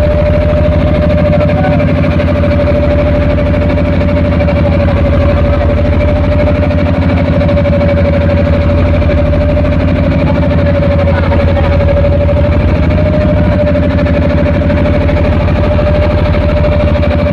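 Boat engine running steadily close by, a constant drone with a held tone that does not change in speed.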